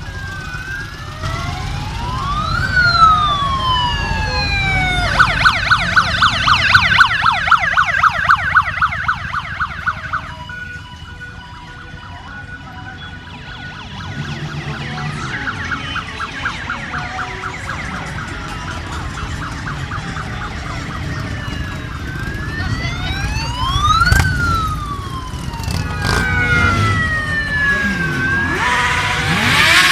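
Sirens sounding over the low rumble of slow-moving motorcycle engines. The sirens wail slowly up and down, sometimes two at once, and switch to a fast yelp twice for several seconds each. There is a short loud burst near the end.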